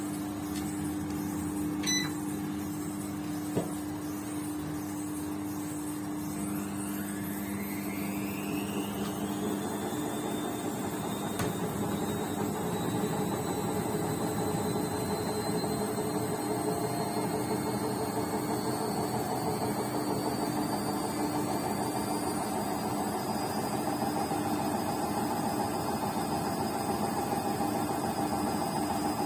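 BEKO washing machine on its spin cycle: a steady motor hum with a whine that rises steadily in pitch from about six seconds in as the drum speeds up. There is a brief click about two seconds in and another a little later.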